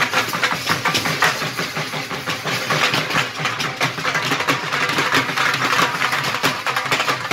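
Dhol drums beating fast and steadily, over the hubbub of a crowd.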